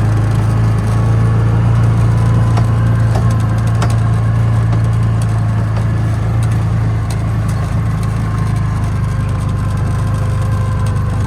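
Coleman Outfitter 550 UTV engine running at a steady speed, with a few light rattles and clicks from the machine.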